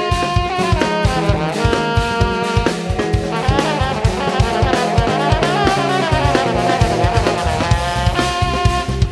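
Jazz fusion: a trombone solo over a drum kit and electric bass groove, the trombone line bending and sliding in pitch around the middle.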